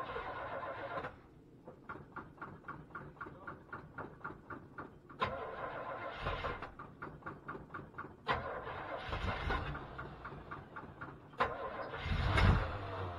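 The 1978 GMC Suburban's engine in 12-degree cold, started without choke, running unevenly: a rapid regular pulsing of about four beats a second, broken by a sharp click about every three seconds, each followed by a louder low surge, the loudest near the end.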